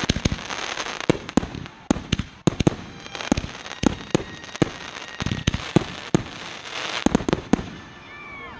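Fireworks display: aerial shells bursting in a rapid series of sharp bangs, several a second, which thin out about seven and a half seconds in.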